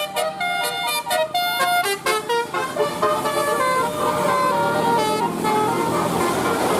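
Bus telolet horn, a multi-tone musical horn, playing a tune of quick stepped notes. After about two seconds the notes are held longer, over a growing rushing noise.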